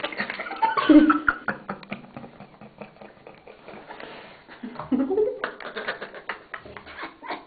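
Handling noise of a small handheld camera held at very close range: rapid clicks, taps and rubbing of fingers on the camera near its microphone, thickest near the end. Short bits of a girl's voice come through about a second in and again near five seconds.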